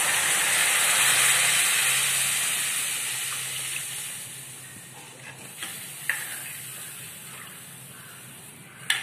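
Strained tamarind water poured into hot oil and fried sambar powder in a steel kadai, hissing and sizzling loudly at first and dying away gradually over several seconds. A single sharp tap near the end.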